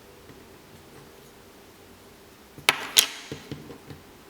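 Two sharp plastic clacks about a quarter second apart, then several lighter taps. This is a plastic Play-Doh shape cutter being pressed down into dough on a hard table.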